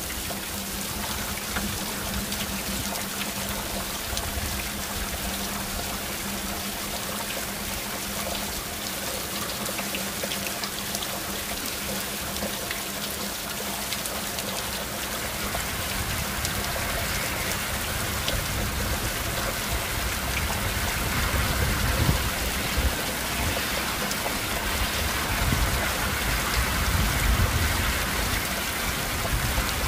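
Heavy downpour: a steady hiss of rain falling on roofs and streets. It grows a little louder in the second half, with a low rumble underneath.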